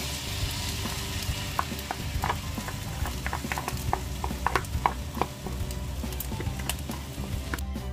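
A wooden spatula scraping and tapping crab meat and tomalley out of a king crab's shell into fried rice frying in a pan, with a steady sizzle underneath. A run of quick clicks and knocks comes in the middle, as the spatula works against the shell.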